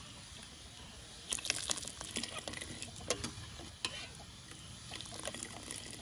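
Metal ladle stirring and scooping tea in a metal pot: liquid sloshing and pouring back into the pot, with irregular sharp clinks of the ladle against the pot from about a second in.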